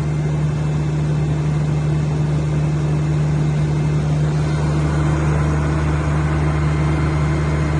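180 kVA Cummins open-type diesel generator set running at a steady speed, its engine note even and unchanging.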